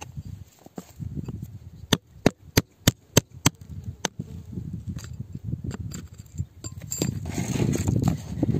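A thin metal pick tapping and prying at hard volcanic rock: a quick run of sharp clicks about two to four seconds in, then rougher scraping near the end.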